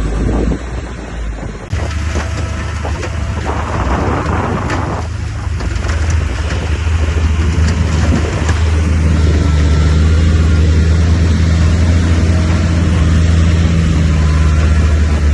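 A bulldozer's heavy diesel engine running steadily under load. For several seconds, starting about two seconds in, a loud crackling, grinding noise of earth and rock being pushed rides over the engine, then the engine note runs on alone.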